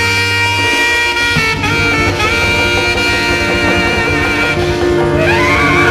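Tenor saxophone playing long held notes over a Latin jazz band, sliding up into a new note near the end.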